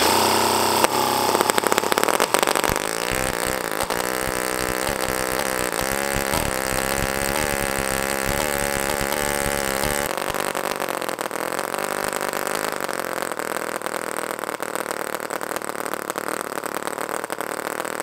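NR-200 miniature water-cooled two-cylinder four-stroke gasoline engine running fast with a high buzzing note, its speed hunting up and down. About ten seconds in the sound changes abruptly to a steadier run.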